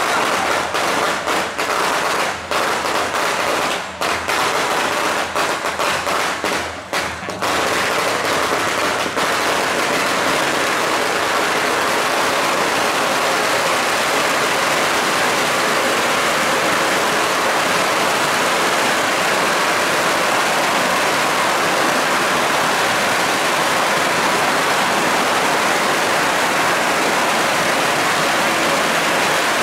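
Strings of firecrackers going off: rapid, closely packed cracks for the first seven seconds or so, then merging into one unbroken, dense crackle.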